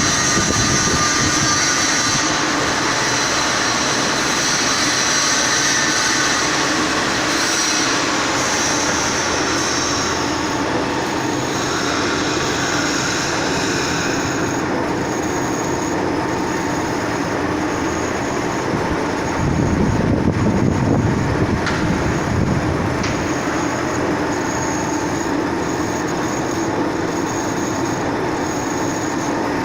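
A machine running continuously with a loud, steady mechanical noise. A high hiss fades about halfway through, and a brief low surge comes about two-thirds in.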